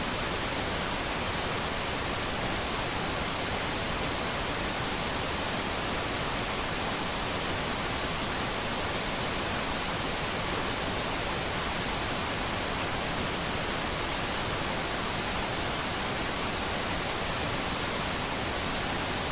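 Steady, even static hiss of white noise that does not vary at all.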